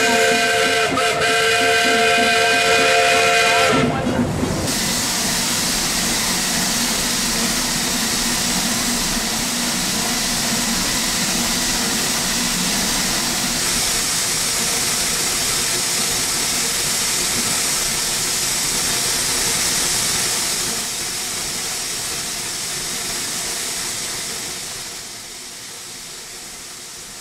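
A 1920 Baldwin steam locomotive's whistle blows a steady chord of several notes and cuts off about four seconds in. A steady hiss of escaping steam follows and fades away near the end.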